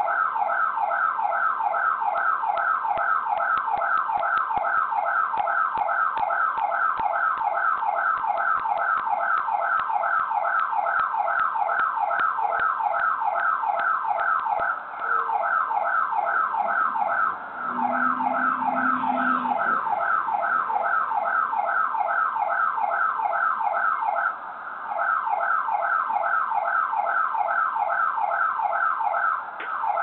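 Electronic alarm siren sounding in fast, evenly repeated falling sweeps, about four a second, dropping out briefly a few times.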